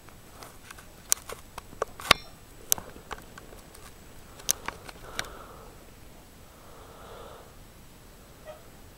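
Handling noise from a handheld camera: a quick run of sharp clicks and taps over the first five seconds, then a soft breath-like rustle about seven seconds in.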